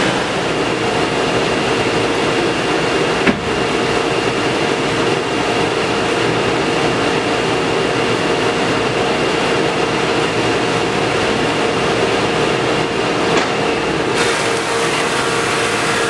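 Stationary thickness planer running steadily with a constant hum, with a single sharp knock about three seconds in. Near the end the sound turns hissier and brighter as a walnut board goes into the planer.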